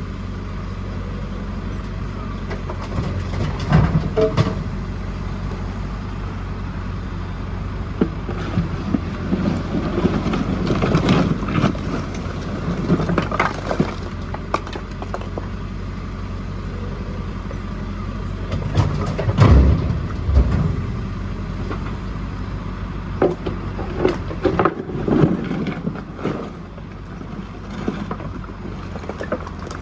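JCB 4CX backhoe loader's diesel engine running steadily, with repeated knocks and clatter from the bucket as rubble is loaded; the loudest knock comes about two-thirds of the way through.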